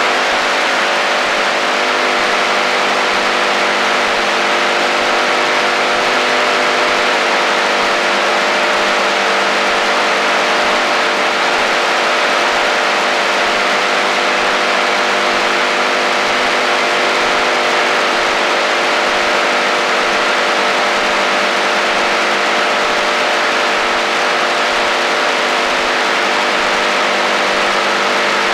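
Static and interference from an AM radio receiver tuned in the HF shortwave band: a steady hiss with several steady tones humming and whining through it, unchanging throughout.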